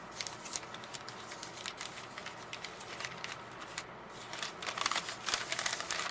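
Paper wrapping crinkling and tearing as a bar of handmade soap is unwrapped by hand. There are many quick crackles, busier and louder in the last second and a half.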